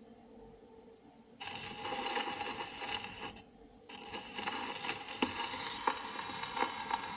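Steel needle of an acoustic gramophone's soundbox set down on a spinning shellac 78 rpm record. It comes in suddenly as a steady hiss with scattered clicks from the blank lead-in groove. The hiss stops for about half a second near the middle, then resumes with a tick roughly every revolution until the music is about to start.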